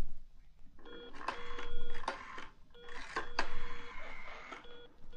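A telephone call being placed: a steady ringing tone sounds in repeated stretches about a second long, with clicks from the handset between them.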